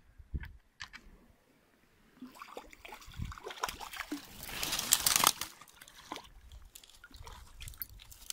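Hooked fish splashing at the water's surface as it is played in on a spinning rod, in irregular splashes with a few sharp clicks. The loudest splash comes about five seconds in.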